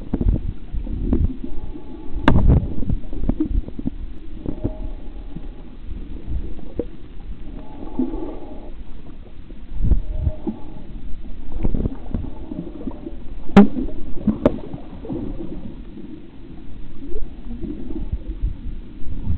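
Muffled underwater sound: water gurgling and sloshing around a camera held below the surface, broken by a few sharp clicks and knocks, the strongest about two seconds in and again near the middle.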